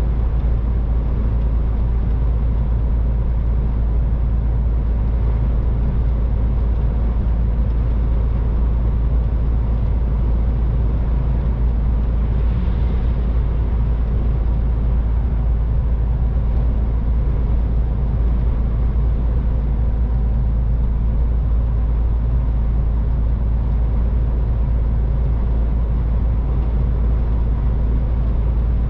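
MAN TGX 18.510 truck cruising on the motorway: its 12.4-litre straight-six diesel engine running with road noise, a steady deep rumble.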